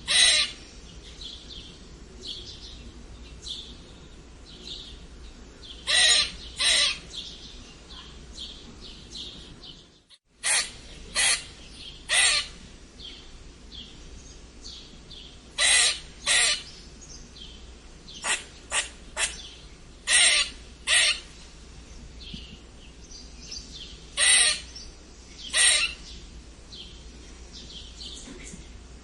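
Squirrel squeaking: short, sharp, high calls every few seconds, often in pairs or quick runs of three, with fainter quick chirps in between. The sound drops out for a moment about ten seconds in.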